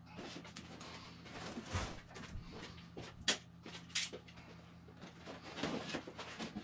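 A large cardboard box being handled and opened: scattered light scrapes and rustles with a few sharp knocks, the sharpest about three and four seconds in, over a faint steady low hum.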